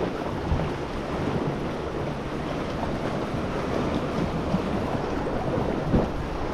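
Sea waves washing against a rocky shore, with wind buffeting the microphone in a steady rush.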